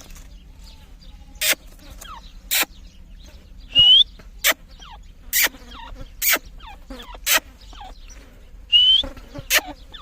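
Teetar (francolins) calling: two loud, short rising whistled notes, one about four seconds in and one near the end, among sharp clicks about once a second and soft chirps.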